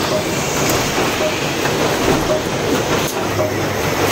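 Robotic packaging-line machinery running: conveyors, robot arms and rollers give a steady clattering din, with a short tone repeating about once a second and a couple of sharper clacks.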